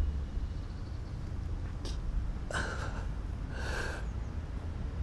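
A man's heavy breaths, two of them a second apart about halfway through, over a low steady background rumble.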